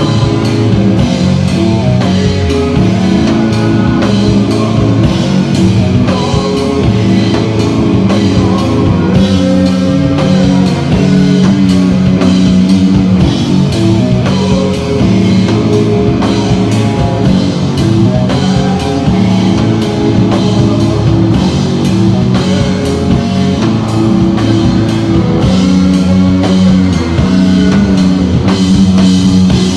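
Rock band playing live, with a drum kit keeping a steady beat under guitars holding sustained low notes.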